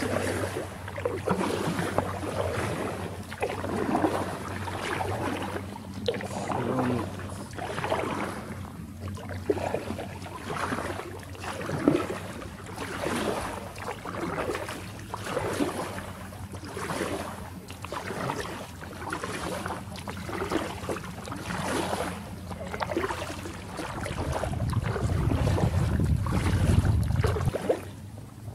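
Kayak paddle strokes splashing in calm creek water, an even stroke about every two seconds. Near the end a low rumble of wind on the microphone rises for a few seconds.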